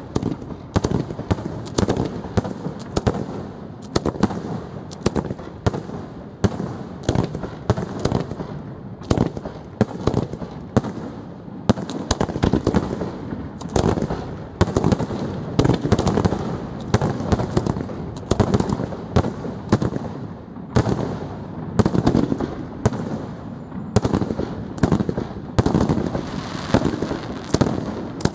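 Aerial fireworks shells bursting one after another in a continuous barrage, several bangs a second without a break.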